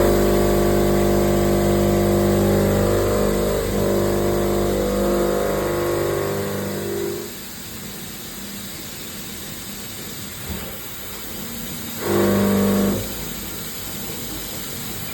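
CNC vertical machining centre running with a steady humming whine during die mould machining. The whine drops away about halfway through, returns briefly for about a second, then starts again near the end.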